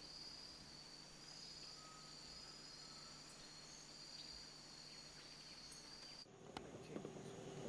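Faint, steady high-pitched buzzing of a forest insect chorus. About six seconds in it cuts off abruptly, and a low steady hum with a few knocks takes over.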